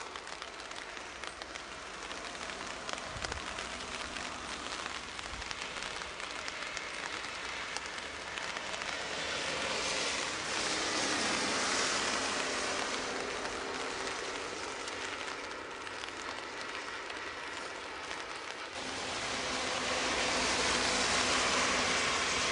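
Steady rain falling, a broad hiss that swells louder twice, around the middle and near the end.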